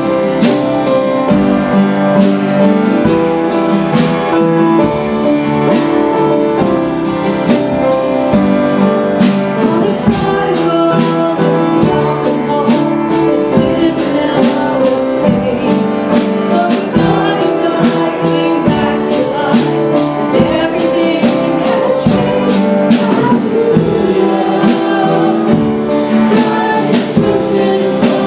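Church worship band playing a song with drum kit, guitar and voices singing, over a steady drum beat.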